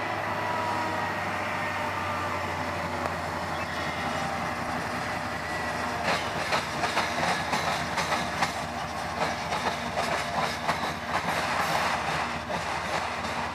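Diesel freight train passing: a BNSF locomotive's engine running steadily, then from about six seconds in a rapid run of clicks and knocks as its wheels and those of the first autorack cars roll over the rail joints and crossings of the junction.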